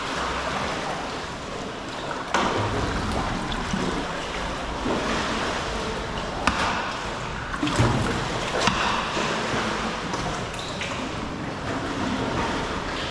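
Sea water sloshing and splashing around a sea kayak as it is paddled, with a few sharp knocks.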